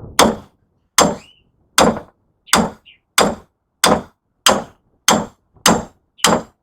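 Hammer driving a steel chisel to cut the copper windings off a scrap electric motor: about ten sharp metallic blows at a steady rhythm, roughly one and a half a second, each with a short ring.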